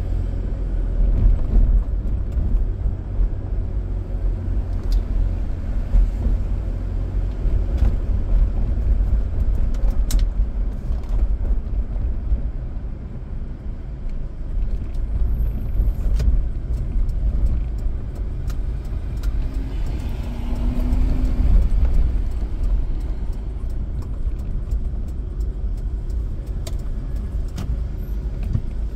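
Car driving on city streets: steady low rumble of tyres and engine, with a few faint clicks and a brief swell about two-thirds of the way through.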